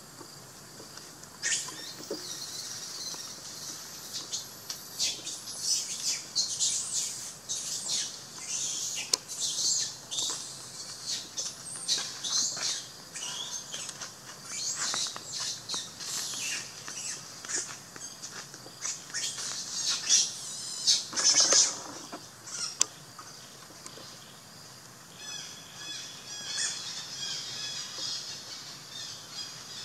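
High-pitched animal calls: quick, repeated chirps and squeals, loudest about 21 seconds in. A run of evenly pitched chirps follows near the end.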